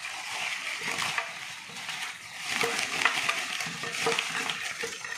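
Thin black plastic bag rustling and crinkling as it is handled and emptied of live climbing perch into a bowl.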